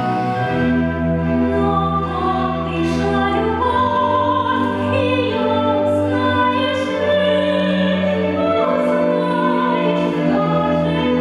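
A woman singing an operetta aria in a classical style over orchestral accompaniment, with long held notes and some vibrato.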